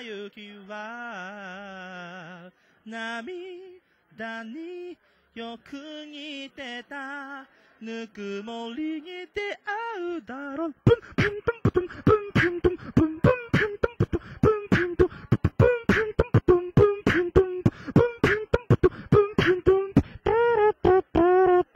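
Human beatboxing into a handheld microphone. For about the first ten seconds a solo voice makes wavering, sliding pitched lines with short breaks; about eleven seconds in, a fast, dense beat of kick and snare sounds starts, with a pitched vocal line carried over it.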